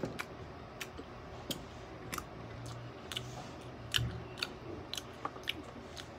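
Close-up chewing of crisp food, with sharp crunching clicks about two a second and a low thump about four seconds in.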